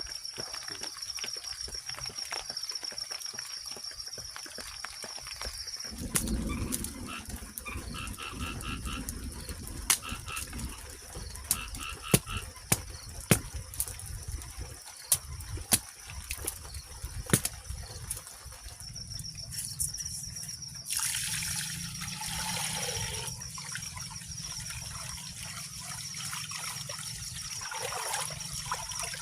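Outdoor ambience: a steady, high, finely pulsing trill, broken in the middle by a run of about a dozen sharp knocks, then a few seconds of rushing hiss that falls away.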